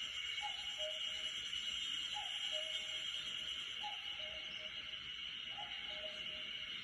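A common cuckoo calling its two-note falling "cuck-oo" four times, about every second and a half to two seconds, over a steady high hiss.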